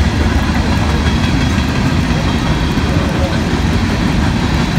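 Freight train cars rolling past on the rails: a loud, steady rumble, heard amid rain.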